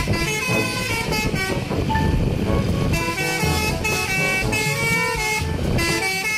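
Mercedes-Benz coach sounding its melodic multi-tone air horn, a tune of stepped notes played in two runs with a short break between them, over the steady rumble of its engine.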